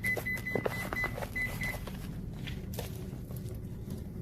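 Microwave oven keypad beeping: a quick run of short, high beeps in the first second and a half as its buttons are pressed, over a steady low hum.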